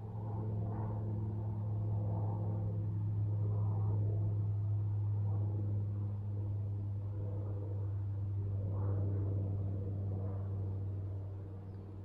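Low, steady engine drone of unchanging pitch, growing louder over the first few seconds and fading near the end, as of a motor passing by.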